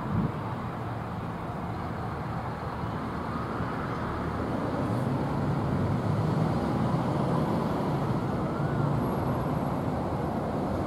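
Steady low rumble of a vehicle, slowly growing louder.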